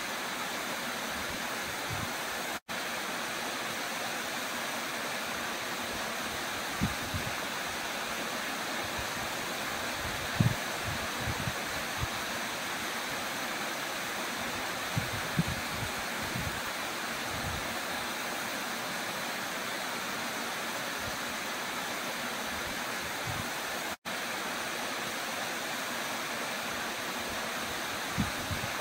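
Small waterfall plunging into a rock pool: a steady, even rush of falling water, with a few brief low thumps and two split-second gaps where the sound cuts out.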